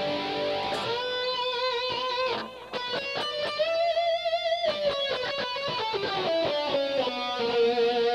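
Gold-top electric guitar playing a lead line of long sustained single notes with wide vibrato and slides. In the middle a note is bent up and held, and near the end a note slides down.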